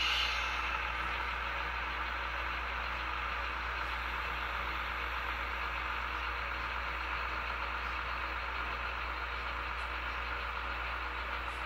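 A SoundTraxx Tsunami 2 sound decoder in an HO scale GE 70-tonner model plays a diesel prime mover running steadily through the locomotive's small speaker. The locomotive is running light on level track while the decoder calibrates its nominal low-speed load level.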